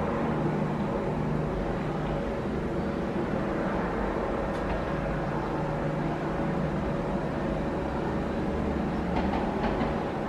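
New York City subway train approaching along open track: a steady running noise of wheels on rail with a low, even hum, and a few faint clicks near the end.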